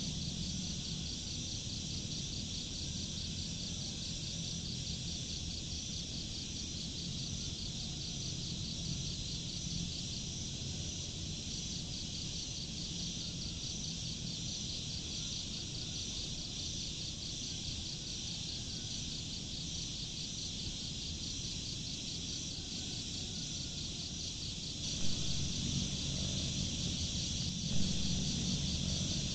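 Crickets chirping in a steady, fast-pulsing chorus over a low rumble, with two short knocks near the end.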